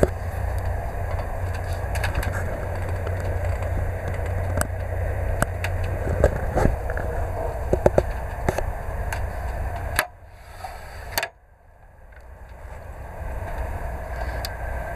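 Steady low rumble inside a TGV EuroDuplex carriage, with scattered clicks and knocks from the seat's plastic and metal fittings being handled, such as the fold-down tray table. About ten seconds in, the sound drops away abruptly after a click, goes nearly silent after a second click, then builds back up gradually.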